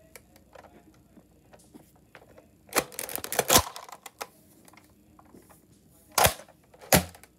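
Plastic Nerf Fortnite toy pistol being handled: light clicks and rattles, a burst of clattering about three seconds in, then two sharp plastic clacks about a second apart near the end.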